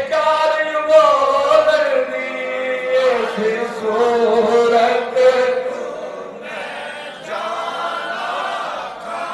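A man singing devotional verse solo into a microphone, with no instruments, on long held notes that waver and slide in pitch.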